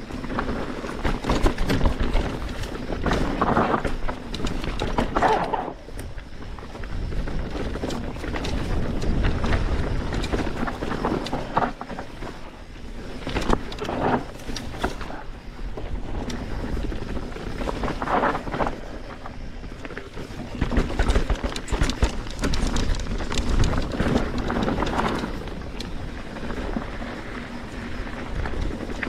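Mountain bike ridden downhill on a rough trail: steady wind rumble on the microphone, with the tyres and bike rattling over the ground and louder surges on bumpy stretches.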